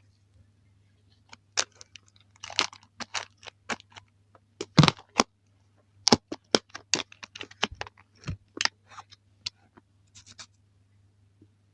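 Fidget toys handled close to the microphone: an irregular run of sharp clicks and scratchy taps, with a faint steady low hum underneath.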